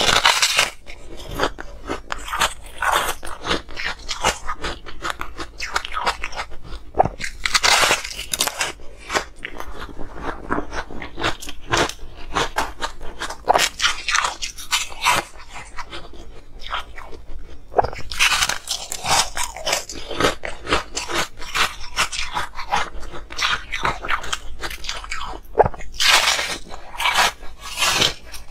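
Close-miked crunching and chewing of frost-coated ice, a dense crackle of breaking ice with a louder crunchy bite every few seconds.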